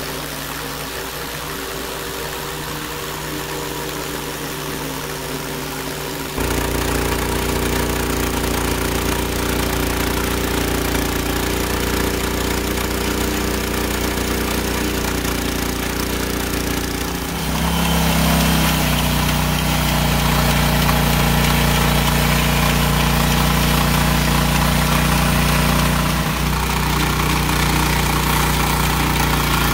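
Hudson Hunter band sawmill running as its blade cuts along a log, the engine a steady drone under load. The sound steps up in level about six seconds in, then turns lower and louder about eighteen seconds in.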